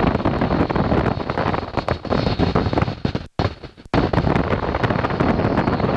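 Wind buffeting the microphone over the steady run of a Boeing PT-17 Stearman's seven-cylinder radial engine in flight, heard from the open cockpit. The sound drops out for a moment a little past three seconds in.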